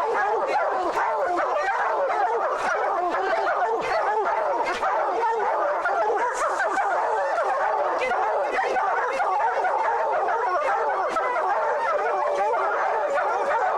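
A pack of bear hounds baying and yelping together in a steady, dense chorus of overlapping calls, the sound of dogs holding a bear treed.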